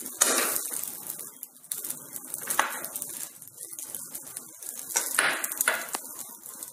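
A steel spoon scraping and clinking against a kadai and a glass bowl as cooked poha is scooped from the pan into the bowl, in a series of separate strokes.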